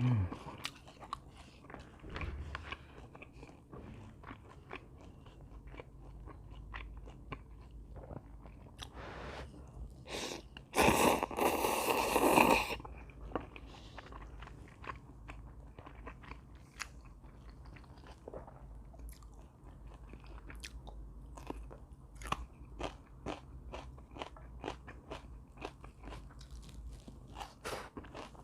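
Close-up sounds of a person chewing and biting food, with many small crunches and wet clicks: a mukbang meal of gimbap, cup ramen and crunchy fried twigim. About eleven seconds in comes one louder rush of noise lasting about a second and a half.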